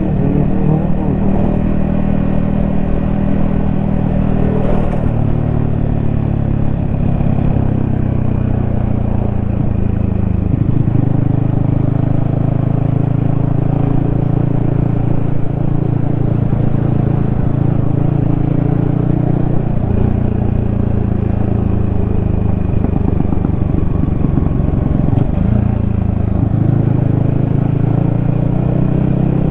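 Yamaha XSR155's single-cylinder engine and exhaust running steadily while riding, heard from the rider's helmet. The engine note holds and then drops or climbs in pitch a handful of times.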